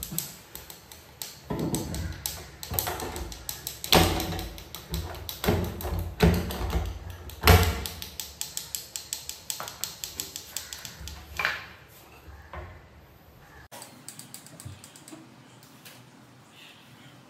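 Plywood cabinet doors being handled and fitted: irregular wooden knocks and clicks, with a few louder knocks, growing quieter over the last few seconds.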